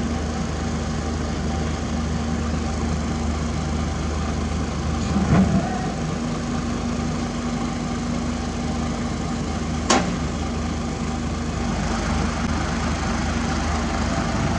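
Heavy diesel machinery engines running steadily, with a brief clatter about five seconds in and a single sharp metallic knock about ten seconds in.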